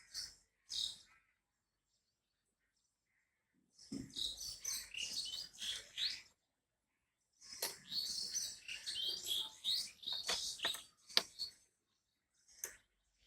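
Plastic Rubik's cube pieces being pressed into place by hand, squeaking, scraping and clicking against each other in two longer bursts, with a few sharp clicks near the end.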